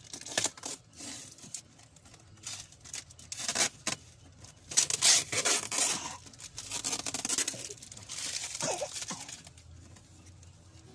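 Cardboard box packaging being torn open by hand: irregular ripping and scraping strokes, loudest about five seconds in, fading out near the end.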